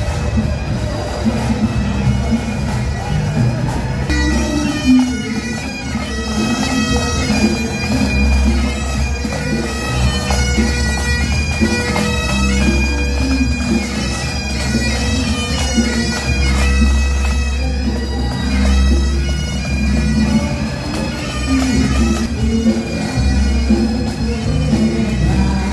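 Pipe band playing bagpipes: steady drones held under a chanter melody whose notes step up and down, with a steady low rumble underneath.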